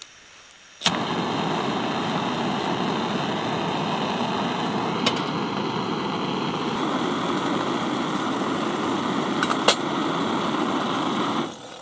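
Backpacking canister gas stove lit with a sharp click about a second in, its burner then hissing steadily at full flame to heat a pot of water. A metal pot clinks onto it midway, with a couple more clinks near the end, and the hiss cuts off near the end.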